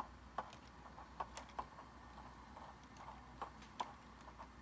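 Faint clickety-clack of wheels over rail joints, played through the speaker of the Tsunami 2 car sound decoder in an HO scale Athearn Genesis Union Pacific CA-8 caboose as it rolls. It comes as sharp, unevenly spaced clicks, about two a second, over a low steady hum.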